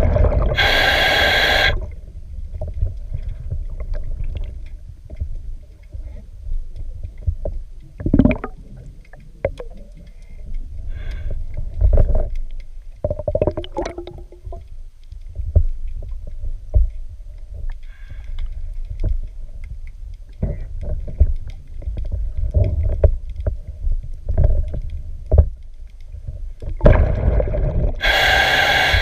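Underwater sound of a diver cleaning a boat hull: a loud, roughly two-second scuba regulator breath at the start and another near the end, with irregular knocks and rubbing against the hull in between.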